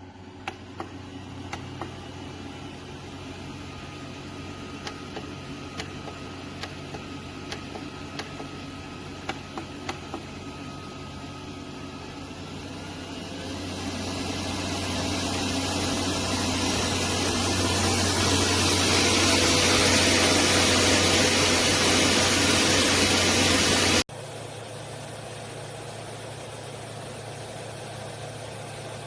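Pecute high-velocity dog dryer running with a steady motor hum and rushing air. The airflow grows much louder from about halfway through, then the sound drops suddenly near the end to a quieter steady run.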